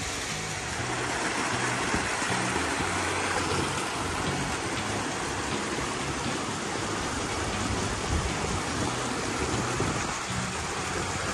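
Steady rush of a small waterfall and creek, with irregular low rumbles of wind buffeting the microphone.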